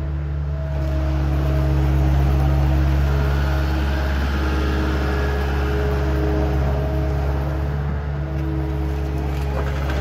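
Caterpillar 279D compact track loader's four-cylinder diesel engine running steadily as the machine turns in place on its rubber tracks, with a few higher tones coming and going over the low engine drone.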